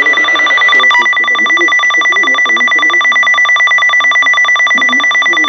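Weather alert radio sounding its alert alarm: a loud electronic beeping pulsed many times a second, trilling like a telephone ring, starting about a second in over a steady high tone. It signals that a new weather warning is coming in.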